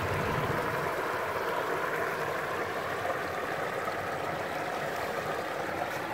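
Shallow creek water flowing steadily.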